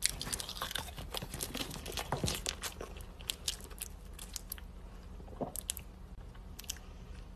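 Close-up eating sounds of a bite of banana being chewed: many small wet mouth clicks and crackles, dense for the first three seconds, then scattered.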